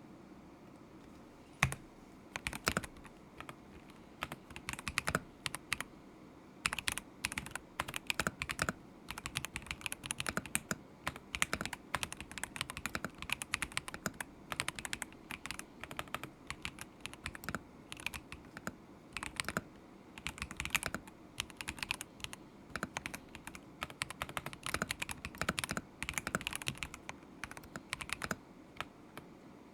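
Typing on a stock KZZI K75 Pro mechanical keyboard with Moment linear switches: quick key clacks in bursts with short pauses between them. A single louder keystroke comes a couple of seconds in, and the typing then runs faster and denser.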